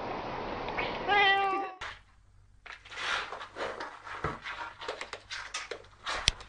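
A cat meows once, a pitched call that falls in pitch, about a second in. After a break comes a run of irregular scratching and rustling as a cardboard box scrapes across a floor, with a sharper knock near the end.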